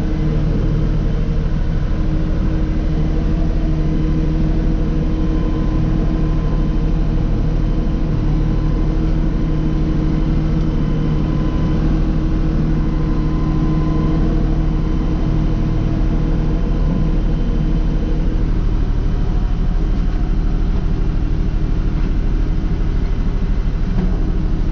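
LS compact tractor's diesel engine running steadily, heard from inside the cab as the tractor is driven slowly.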